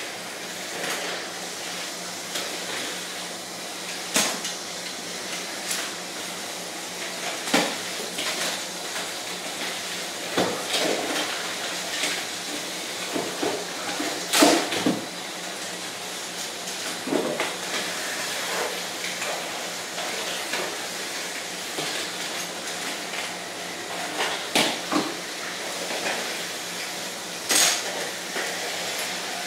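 Lego spinner combat robots clashing: the plastic Lego parts and spinning weapons clatter and knock in a string of sharp hits, the loudest about halfway through, over a steady whir.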